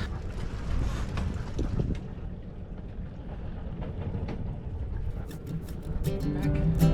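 Low, steady rumble of wind and water noise aboard a small sailboat, with a few faint knocks. Acoustic guitar music starts about six seconds in.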